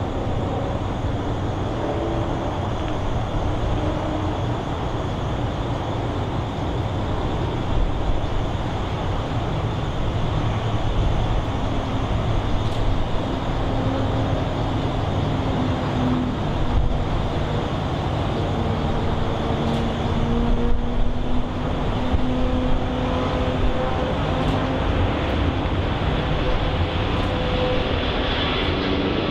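Four-engine Airbus A340 airliner's jet engines at takeoff thrust through the takeoff roll: a steady rumble with wavering engine tones, the hiss brightening near the end as the jet lifts off close by.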